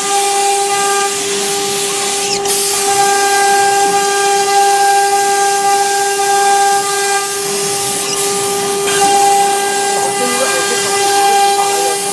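CNC router spindle running at a steady high-pitched whine over a constant hiss while it cuts MDF, with two brief ticks, one a couple of seconds in and one about two-thirds through.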